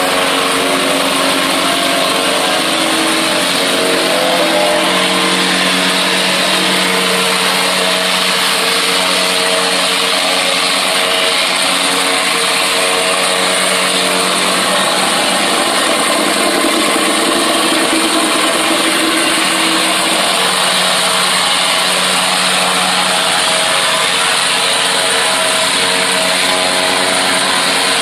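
Reversible vibratory plate compactor running steadily, its engine and vibrating plate working over loose gravel. The engine note wavers slightly in pitch as the machine is steered.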